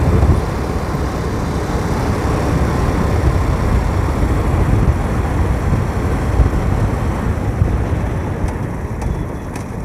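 Wind buffeting the microphone over the road and engine noise of a moving motorcycle: a steady low rumble that eases off near the end as the bike slows.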